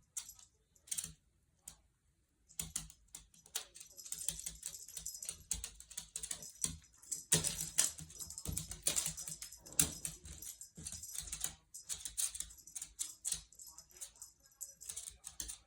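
A cat batting at and chasing a wand toy: an irregular patter of quick clicks and rustles from paws and the toy, with a short lull about a second and a half in.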